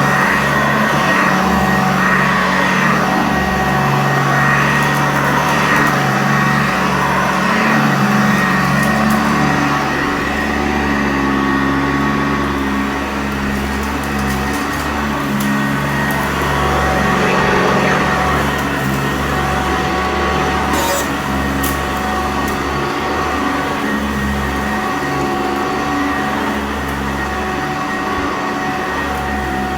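Sanitaire upright vacuum cleaner running steadily, its motor humming and brush roll working over carpet. A few sharp clicks come about two-thirds of the way through.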